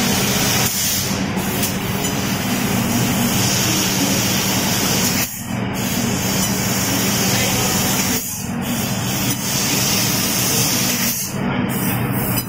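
Fiber laser cutting machine cutting steel sheet: a steady loud hiss over a low hum, dropping out briefly about four times, roughly every three seconds.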